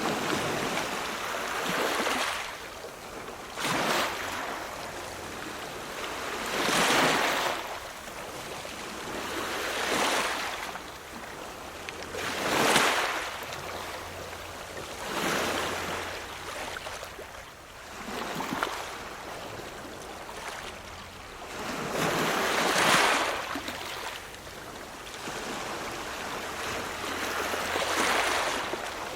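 Ocean surf: waves breaking and washing in, a rush of water rising and falling every few seconds.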